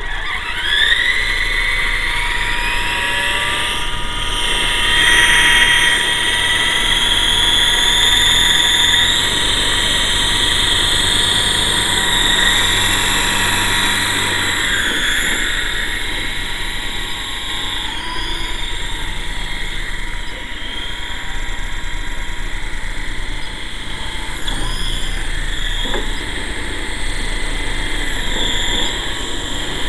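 GT Model QS8006 RC helicopter's electric motors and rotors spooling up: the whine rises sharply in the first second, then runs on as a steady high whine whose pitch wanders up and down with the throttle while the helicopter lifts off and hovers.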